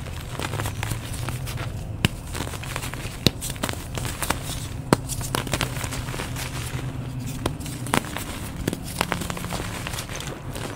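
Hands crushing and crumbling soft blocks of fresh gym chalk: soft powdery crunching broken by many irregular sharp crackles. A low steady hum runs underneath.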